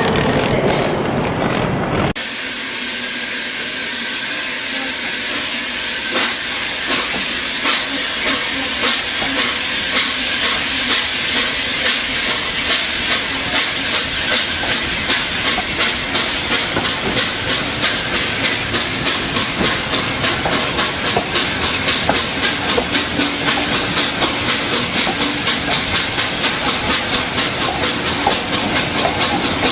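Steam locomotive hissing steam, with even exhaust chuffs at about three a second from around six seconds in. It follows an abrupt change about two seconds in from a lower, engine-like rumble.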